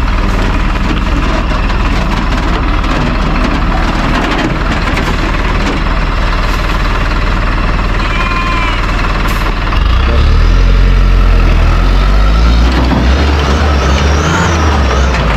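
Diesel tipper truck engine running under load as the truck pulls up a slippery mud track. It gets louder and deeper about ten seconds in as it pulls harder.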